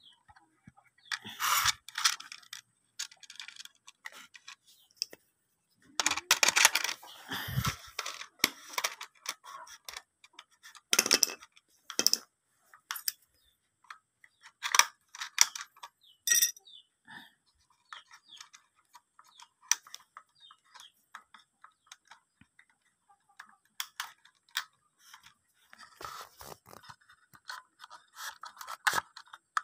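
Scattered clicks, taps and scrapes of hands handling small metal parts and copper wire on a homemade coil-and-capacitor stunner board. A denser run of rustling and scraping comes about six to nine seconds in, and another near the end.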